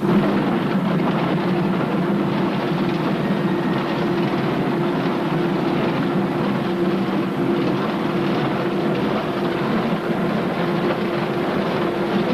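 Underground coal-mining machinery running, a loud steady mechanical rattle with a low hum, starting suddenly.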